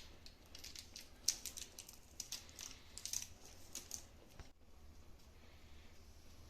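Light clicks and scrapes of a spoon adding coffee to the milk: a quick, irregular run of small ticks for about four and a half seconds. After that only a low steady hum is left.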